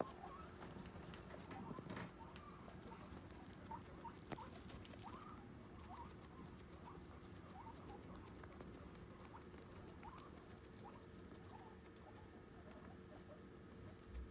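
Guinea pigs chewing leafy greens (kale), a faint irregular crunching and nibbling.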